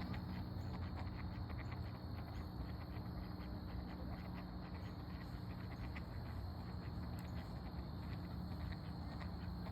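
Outdoor nature ambience: a constant high insect drone and many short chirps, over a steady low rumble.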